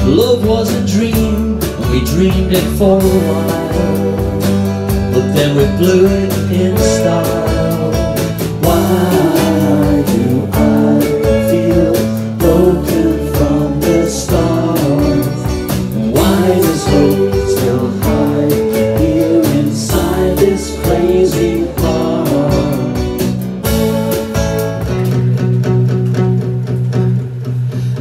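A live rock band playing: guitars, bass guitar and drums, with a man singing. About three seconds before the end the drums drop out and strummed acoustic guitar carries on.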